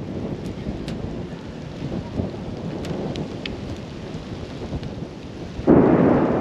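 Thunder rumbling low and unevenly from an approaching thunderstorm. About five and a half seconds in, a sudden, much louder rush of noise sets in and holds.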